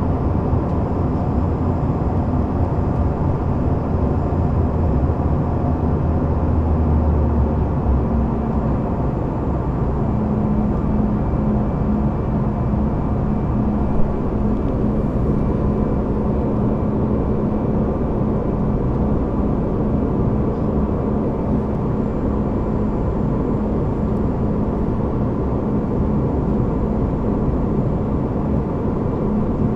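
Steady cabin noise of a Canadair CRJ200 regional jet in flight: rushing air with the hum of its rear-mounted turbofan engines. About eight to ten seconds in, a low hum fades and one steady tone drops slightly in pitch, then holds; a single brief tick sounds near the middle.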